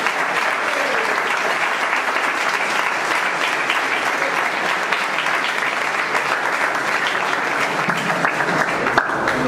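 Audience applauding steadily: many hands clapping together in a room.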